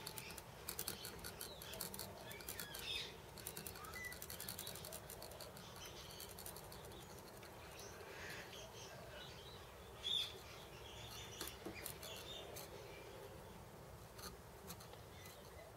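Quiet workshop sound: light clicks and taps from hand-adjusting a small milling machine's table, thickest in the first few seconds and again near the end, with faint bird chirps in the background, one sharper chirp about ten seconds in.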